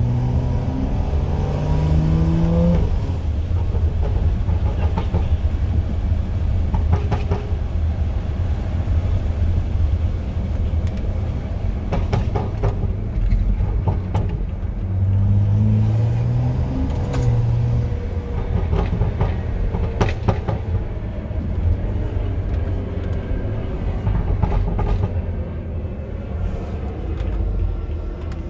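BMW 335i's N55 turbocharged inline-six with a loud aftermarket exhaust, heard from inside the cabin while driving: the engine note rises under acceleration in the first few seconds and again about halfway through, over a constant low rumble. Several short sharp cracks stand out along the way.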